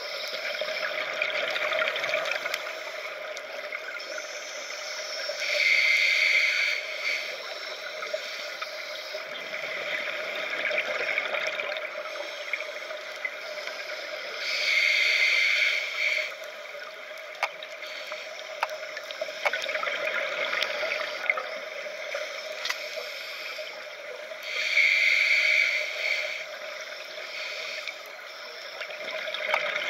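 Scuba breathing heard underwater through a regulator: three loud gurgling rushes of exhaled bubbles about nine seconds apart, with a quieter hiss between them. Scattered sharp clicks sound through it.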